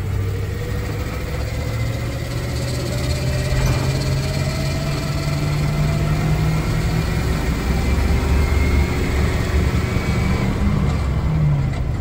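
Engine of an old Blue Bird Wanderlodge motorcoach pulling away and accelerating, its pitch rising slowly for several seconds, heard from inside the cab.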